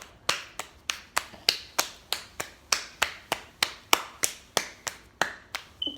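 A steady run of sharp snaps or clicks, about three a second, stopping shortly before the end.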